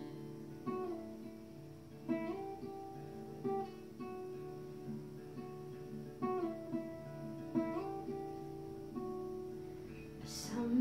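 Acoustic guitar played alone: picked chords ringing out, with short upward slides between notes. The phrase repeats about every 1.4 seconds. There is a short hiss near the end.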